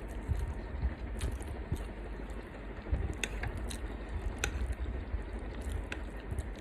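Eating close to the microphone: chewing with several sharp little clicks and taps scattered through.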